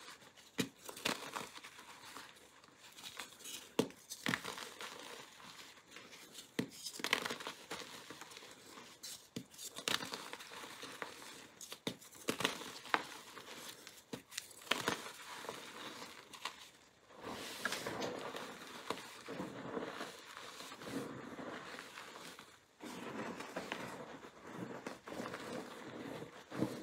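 Blocks of gym chalk (magnesium carbonate) coated in coloured powder being crumbled and crushed between bare hands: dry crunching and crackling with many sharp snaps as pieces break. In the second half the hands squeeze and press into a heap of crushed chalk, giving a denser, more continuous crunch.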